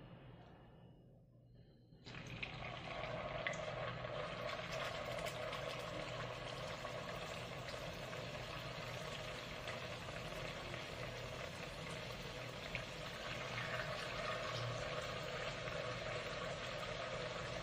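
Vegetable fritter (bakwan) batter frying in hot oil: a steady sizzle with small crackles that starts suddenly about two seconds in as the first spoonful goes into the oil.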